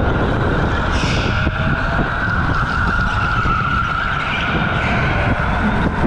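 OTL Storm electric go-kart's motor whining steadily under power, its pitch wavering slightly through the corners, over a heavy rumble of ride vibration. Tyres skid briefly on the concrete about a second in.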